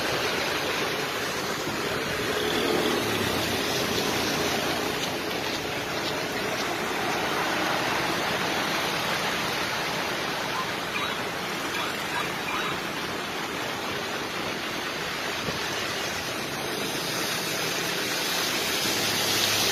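Heavy typhoon rain falling on a wet road surface: a steady, even rush.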